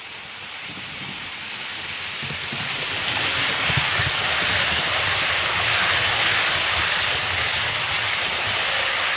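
OO gauge model train running along its track, a steady rushing rumble that grows louder over the first few seconds and then holds.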